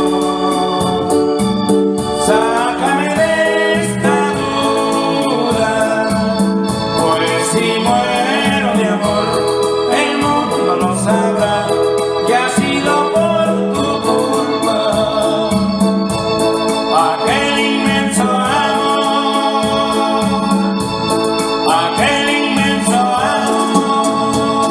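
Background music: a song led by an electronic organ, with a singing voice over a steady, quick beat.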